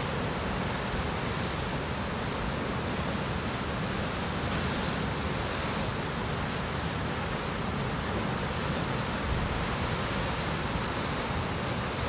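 Ocean surf surging and breaking into a narrow rocky channel: a steady, continuous rush of churning white water.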